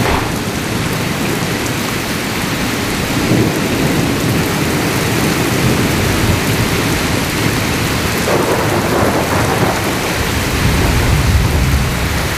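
Very heavy rain pouring down steadily, a dense hiss. Low rolling thunder swells in about three seconds in and again from about eight seconds, rumbling for several seconds.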